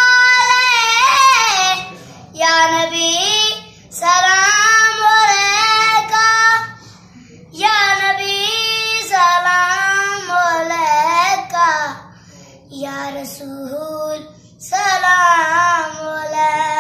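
A boy singing a devotional qasida unaccompanied, in long held phrases with wavering, ornamented pitch turns, broken by short pauses for breath.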